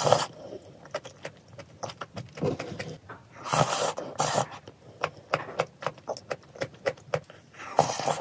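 A person eating hot tomato vegetable soup from a spoon: close slurps at the start, around three and a half to four and a half seconds in, and near the end, with many small clicks and smacks of chewing and of the spoon in between.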